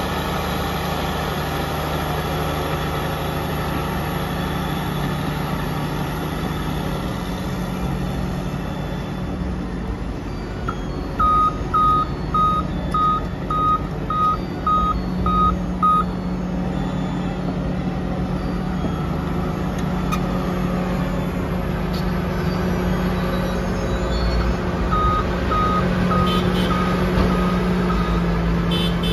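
Heavy diesel engine of a Cat D8T bulldozer running steadily under work. A back-up alarm beeps at one pitch about twice a second for several seconds around a third of the way in, and again more faintly near the end, as the dozer reverses.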